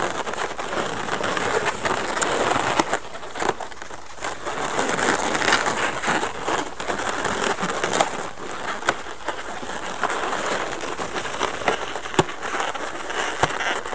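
Latex twisting balloons squeaking and rubbing against each other in the hands as balloon feet are twisted onto a balloon bird's body: a dense run of squeaks and crackles with many sharp clicks. The piece is stubborn to attach.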